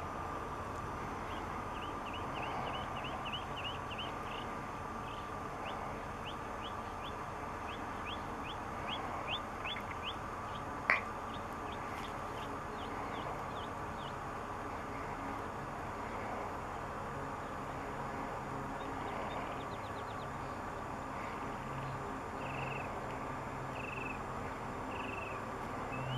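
Airbus A350-900's Rolls-Royce Trent XWB jet engines running at taxi power, a steady whine over a hiss. Over it a bird gives a quick run of short chirps for the first ten seconds, and a few more calls near the end. There is one sharp click about eleven seconds in.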